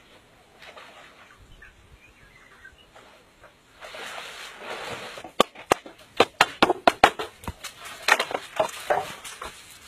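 Bamboo being chopped with a machete, a quick run of sharp strikes, several a second, through the second half. It comes after a few quiet seconds and a brief rush of noise.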